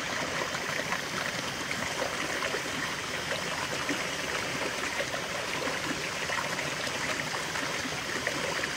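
Small mountain stream splashing over rocks in a short cascade into a shallow pool: a steady rush and bubble of running water.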